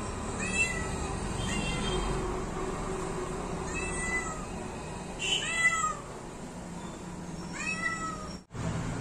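Tabby cat meowing in short, high-pitched calls, about five times, some of them falling in pitch.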